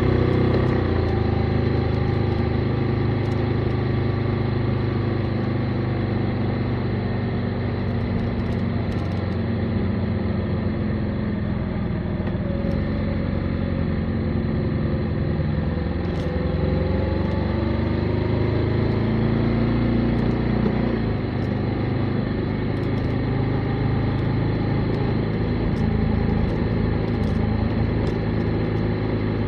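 Motorcycle engine running under way at a steady cruise, its pitch sinking and then climbing again midway as the throttle is eased off and reopened, with road and wind noise underneath.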